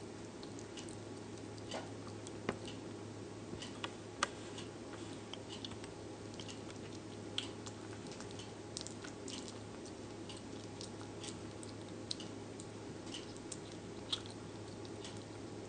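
A slow loris nibbling and chewing food held in its hand: small, irregular wet clicks and smacks, a few louder than the rest. A steady low hum runs underneath.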